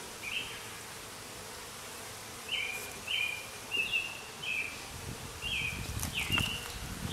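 Honey bees buzzing around an opened hive, with a string of short high chirps that each step down in pitch, repeating every half second to a second. A low rumble of handling comes in during the last couple of seconds.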